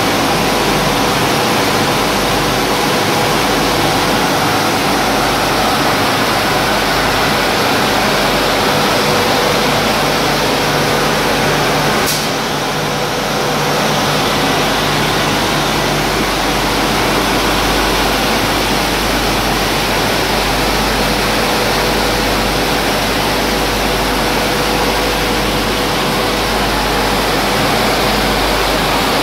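Roller flour mill plant running: a loud, steady machinery roar with a faint steady hum. There is a single click about twelve seconds in, then the level dips briefly.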